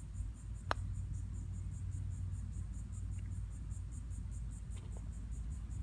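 A putter striking a golf ball: a single sharp click just under a second in, over a steady low rumble.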